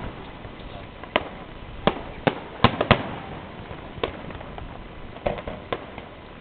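Fireworks display: shells bursting in sharp, irregular bangs, about ten of them, several in quick clusters around the middle and again near the end.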